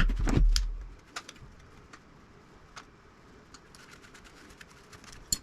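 A low thump as a metal radio part is handled, followed by scattered light clicks and taps of small metal parts being turned over and examined, with one sharper metallic click near the end.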